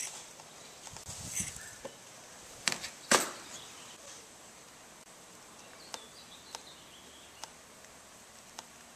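Handling noises while laying up woven carbon fiber cloth: rustling of the cloth and tape with a few sharp clicks, the loudest about three seconds in, then light taps as a paintbrush dabs resin onto the cloth.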